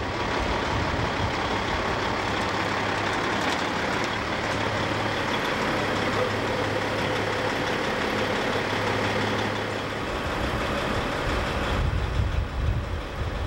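A large bus engine running close by, a steady low drone with hiss. About ten seconds in, the drone gives way to a rougher, uneven low rumble.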